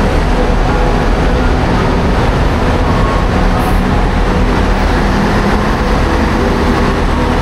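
Steady rumble of a coach bus under way, engine and road noise blended into a continuous drone.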